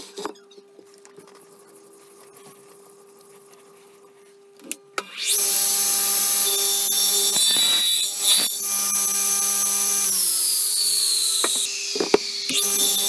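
Powered crosscut saw with a large circular blade starting up about five seconds in and cutting through wooden boards, after a few quieter knocks as the wood is set in place.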